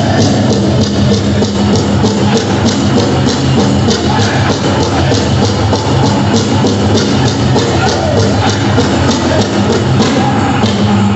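Powwow drum group: a large hand drum struck in a steady, fast, even beat, with men singing together over it.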